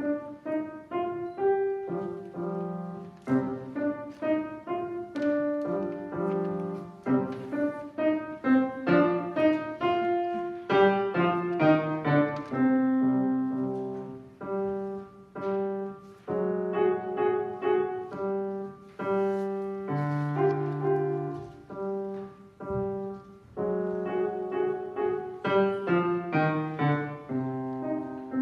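Solo piano playing a slow piece of separately struck notes and chords, about one to three a second, over held low notes.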